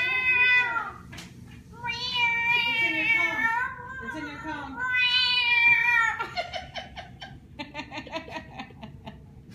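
A woman imitating an animal with her voice: three high, wavering, cat-like calls of about a second each, followed by a run of quick, quieter clicking sounds.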